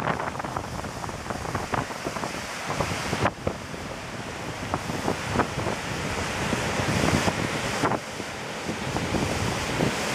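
Surf breaking and whitewater washing in, with strong onshore wind buffeting the microphone in crackling gusts. There are abrupt changes in level about three and eight seconds in.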